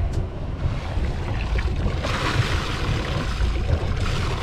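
Nanni marine diesel inboard engine of a sailboat running at idle just after starting, a low uneven rumble. A rushing, splashy noise swells in the middle. The engine is starting and running well now that its cracked return fuel line has been fixed.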